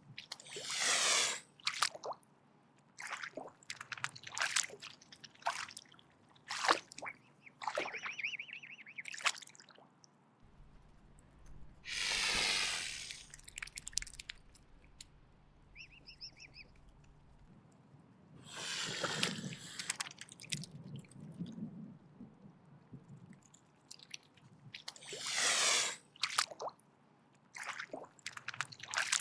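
Mute swan hissing: four long breathy hisses of about a second each, several seconds apart, with short sharp clicks in between.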